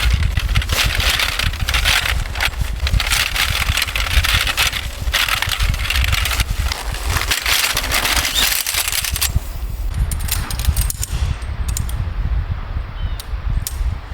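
Strong seaside wind buffeting the microphone with a heavy rumble and dense rapid crackling. After about nine seconds the crackling thins out, leaving the rumble and a few sharp clicks.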